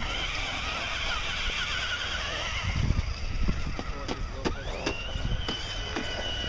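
Electric RC rock-crawler truck's motor whining: a steady high whine that fades out about three seconds in, then a whine that rises in pitch about four and a half seconds in and holds steady, with a few sharp clicks from the truck working over the ground.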